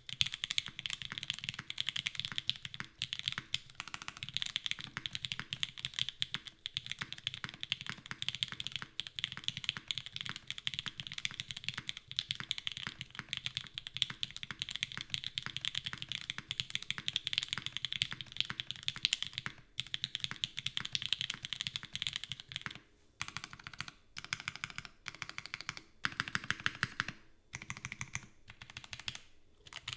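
Typing on a CW80 custom mechanical keyboard with lubed Gateron Oil King linear switches, a full aluminium plate with no foam, and GMK keycaps: fast, continuous keystrokes. Past the three-quarter mark the typing breaks into short bursts with brief pauses between them.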